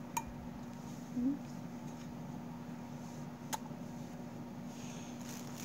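Light handling of a glass candle jar and its lid: a couple of faint sharp clicks over a steady low hum.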